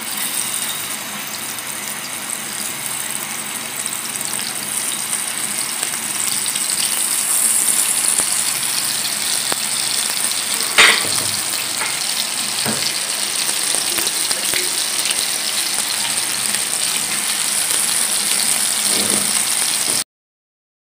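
Chicken shami kababs sizzling as they shallow-fry in oil on a flat griddle: a steady high hiss. One sharp knock about eleven seconds in, and the sizzle cuts off abruptly shortly before the end.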